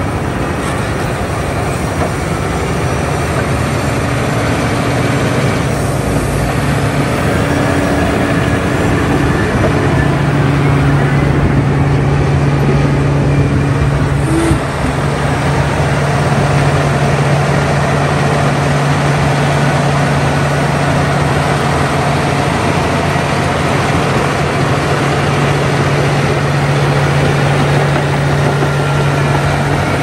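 Caterpillar D9T bulldozer's diesel engine working steadily under load as the dozer pushes soil, a continuous low drone over a rough noise haze. The engine note grows stronger about a third of the way in, and there is a brief dip about halfway through.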